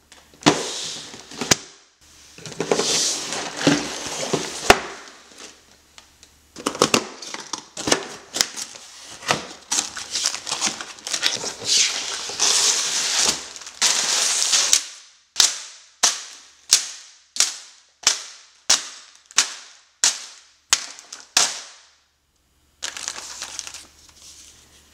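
A cardboard Lego set box being torn open, with tearing, rustling and crinkling of cardboard and packaging, then a run of about a dozen sharp clacks at about two a second.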